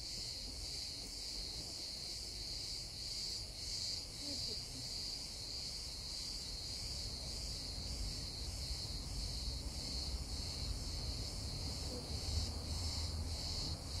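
A chorus of insects singing: a continuous high, shrill buzz that pulses slightly, over a faint low rumble.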